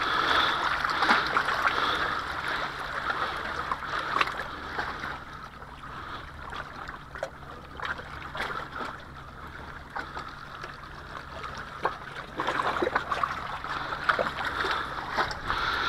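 Small waves lapping and trickling among shoreline rocks, with scattered light clicks, louder at the start and again in the last few seconds.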